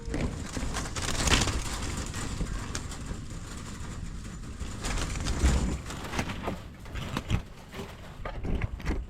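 Farm birds on a poultry farm, with scattered irregular clicks and knocks.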